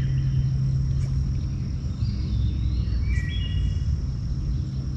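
Steady low hum of a bow-mounted electric trolling motor running, over a low rumble. A bird chirps a few times about two seconds in, against a faint steady insect drone.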